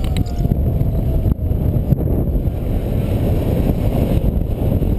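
Airflow buffeting a paraglider pilot's camera microphone in flight just after launch: a loud, steady, low rumble of wind noise.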